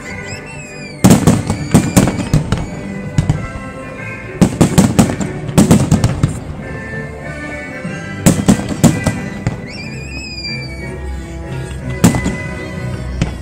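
Aerial fireworks display: clusters of sharp bangs from shells bursting overhead, coming in volleys every few seconds, with a few brief whistles between them and music playing underneath.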